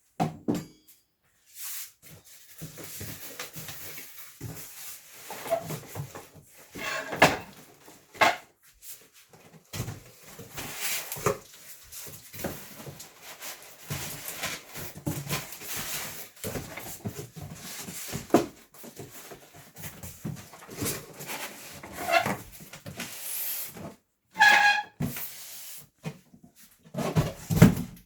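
Unpacking handling noise: irregular rustling and scraping of packaging with knocks as mixer parts and attachments are handled and set down. A brief pitched sound stands out about three-quarters of the way through.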